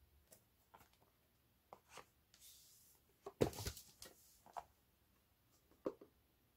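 Boxes of 5.25-inch floppy disks being handled on a wooden floor: scattered light taps and knocks, a brief sliding rustle a little past two seconds in, and the loudest clatter about three and a half seconds in.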